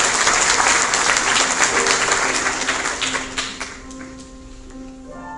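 Audience applauding, fading out about three and a half seconds in. Held musical notes sound underneath as the clapping dies, with a chord near the end.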